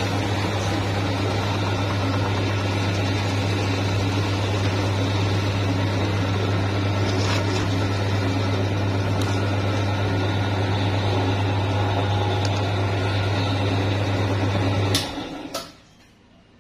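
Electric meat grinder running with a steady, loud hum while it grinds a soft chocolate-flecked cream through its plate. Near the end there are a couple of sharp clicks and the motor stops.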